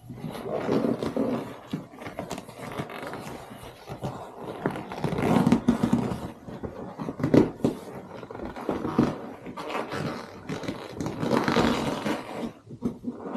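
Vinyl upholstery cover being tugged and stretched down over a jet ski seat, rubbing and scraping in irregular bursts, with a few sharp knocks.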